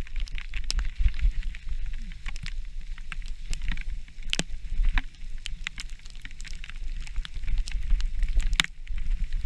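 Mountain bike ridden down a forest trail, heard from the rider's own camera: a steady wind rumble on the microphone with frequent sharp clicks and knocks as the bike rattles over the rough ground.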